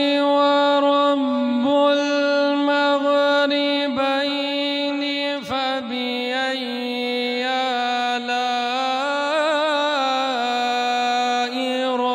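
A male qari reciting the Quran in melodic tajweed style, holding long drawn-out notes with a few brief breaks and a quick warbling ornament near the end.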